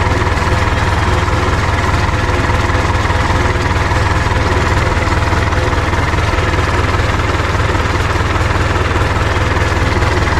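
UTB 650 tractor's diesel engine running steadily, a constant low hum.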